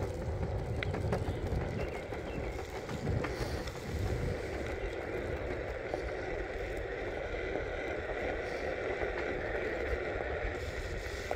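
Skateboard wheels rolling steadily over a concrete sidewalk, a continuous rumble with a few light clicks over the slab joints, and wind on the microphone from the moving camera.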